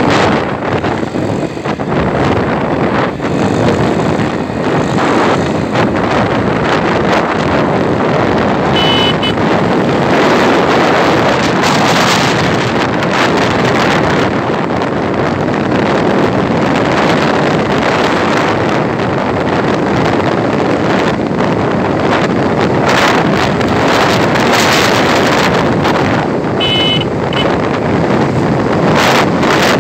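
Wind rushing over the microphone of a moving motorcycle, with road and engine noise underneath. A short high beep sounds twice, about a third of the way in and again near the end.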